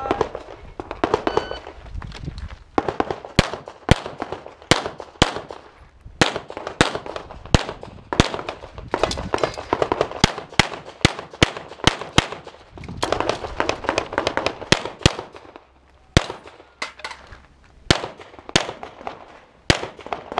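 Pistol shots fired in fast strings, often two in quick succession, with short pauses between strings. A brief electronic shot-timer beep sounds about a second in.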